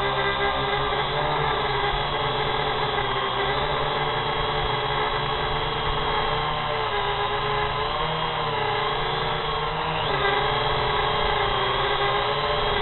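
A multirotor drone's electric motors and propellers whining steadily, the pitch wavering slightly as the motors change speed while it flies low and slows.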